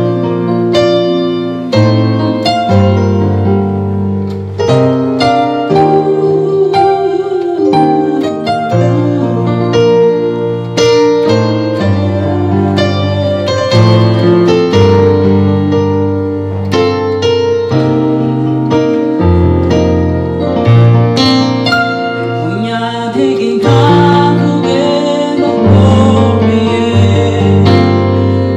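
Electronic keyboard playing the slow, piano-voiced intro of a gospel worship song, with sustained chords over low bass notes. A woman's singing voice comes in near the end.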